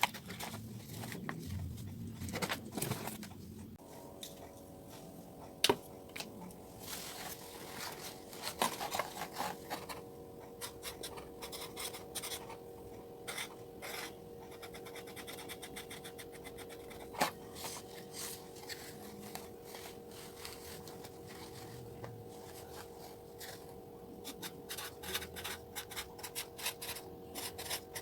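Packaging being handled: rubbing and scratching with scattered small clicks and a couple of sharper taps. A faint steady hum starts about four seconds in.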